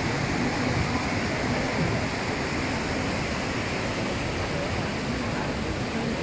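Steady rushing of whitewater river rapids.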